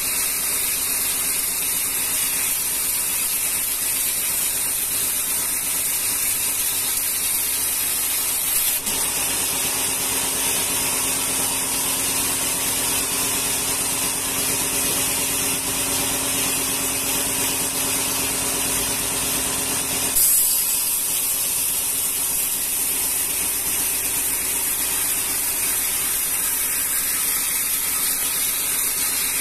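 Sawmill band saw running steadily. About nine seconds in its sound changes as the blade cuts through a rengas timber beam, and near twenty seconds it changes back after a short knock.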